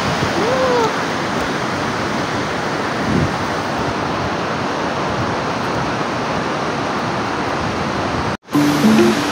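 Steady rushing of a fast, swollen glacial river, the Hooker River, pouring over boulders. Near the end it cuts off abruptly and plucked-string background music begins.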